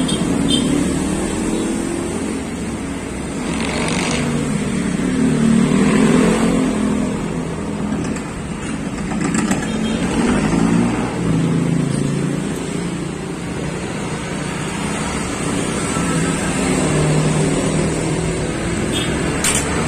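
A motorcycle engine running, its pitch wandering up and down, with a few light metallic clicks of hand tools.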